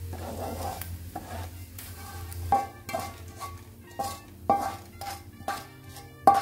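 Oil sizzling in a wok of crisp-fried dried anchovies, then a spatula knocking against the wok and a wire strainer about twice a second as the anchovies are scooped out, each knock with a short ring and the last one loudest.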